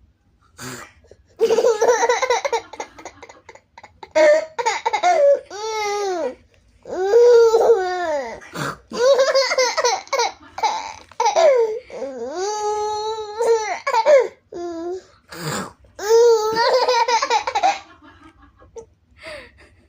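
A person laughing hard and high-pitched, in repeated long fits with short breaks between them.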